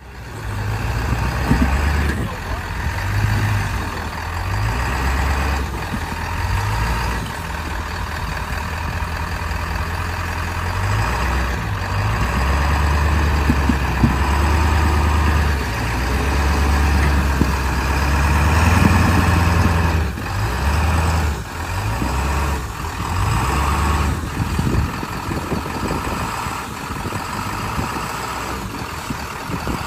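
Off-road 4x4 engine running at low speed, its low rumble swelling and easing as it crawls a rocky trail, with scattered knocks and clunks from the rough ground.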